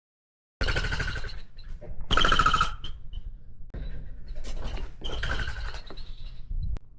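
Rainbow lorikeets screeching in a run of harsh bursts, the loudest about two seconds in, over a low rumble. The sound cuts in abruptly after a moment of silence at the start.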